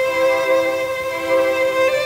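Slow, sustained string music: a high note held steady over a lower note that swells and fades.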